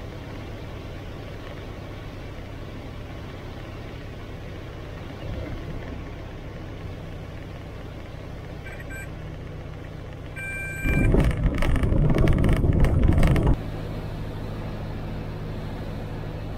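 Robin DR400 light aircraft's piston engine running low and steady, heard from the cockpit on the landing. A short high beep sounds twice, then the wheels touch down on the grass runway and roll with a loud rumble for about two and a half seconds before it cuts off suddenly to the steady engine hum again.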